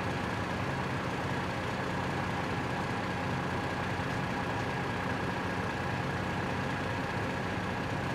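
Steady idling of a vehicle engine, a constant hum over an even rush of noise.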